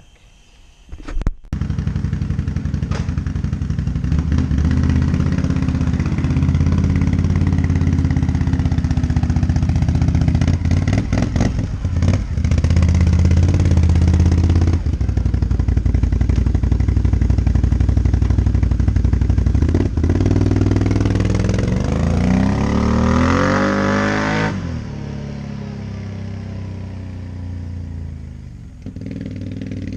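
2017 Can-Am Renegade XMR 570 ATV's Rotax V-twin running through a Yoshimura slip-on muffler. It starts up loud about a second and a half in and runs steadily. About two-thirds of the way through it rises in pitch as it revs up, then drops suddenly back to a lower, steady running note.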